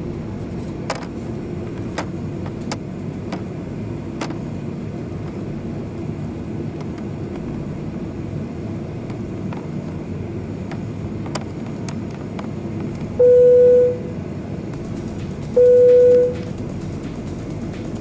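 Cabin noise of an ANA Boeing 737-800 taxiing: a steady engine and rolling rumble with a few sharp ticks. About 13 s in, a loud single-tone cabin chime sounds, then again about two and a half seconds later, with a third starting at the very end: ANA's cabin signal for takeoff.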